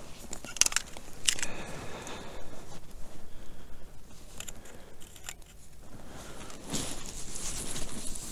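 Scattered soft clicks, crinkles and rustles of close handling noise, such as hands working winter fishing tackle and clothing, with a longer rustle near the end.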